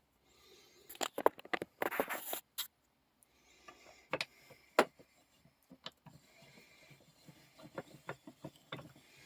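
Clicks, knocks and light rattles of a small old metal vise being handled and its parts worked, with sharp clicks about a second in and near five seconds, a short rustle around two seconds, and a run of light ticks near the end.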